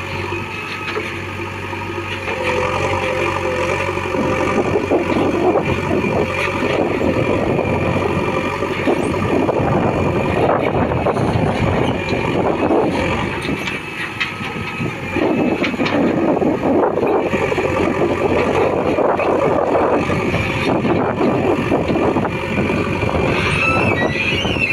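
Heavy diesel machinery running, a backhoe loader and tractors working. The engine note rises and falls with load, and there is a brief squeal near the end.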